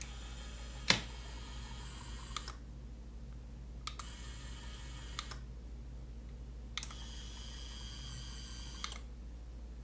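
Small DC gear motor of a model rack-and-pinion gate whirring in three short spells of one to two seconds each, with relay clicks as it starts and stops and a sharp click about a second in. The first spell is cut off partway by the remote's stop button.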